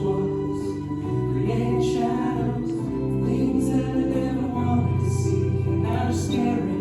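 Live band music with singing, recorded on a cell phone.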